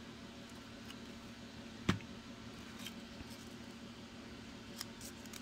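Quiet handling of paper flower layers over a low steady hum, with one sharp knock about two seconds in as the plastic glue bottle is set down on the cutting mat, then a few faint small ticks of paper being pressed together.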